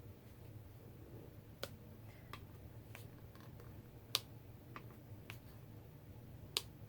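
A rubber stamp being pressed down onto cardstock again and again while stamping a random flower pattern. It makes about seven sharp taps spaced half a second to a second apart, with the loudest just past the middle and another strong one near the end.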